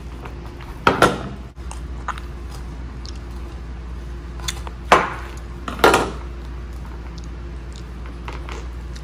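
Tableware clattering on a table: sharp clacks about one, five and six seconds in, with a few lighter clicks between, over a steady low hum.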